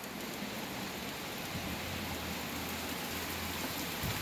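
Steady hiss of rain falling during a thunderstorm. A faint low rumble swells for about two seconds in the middle.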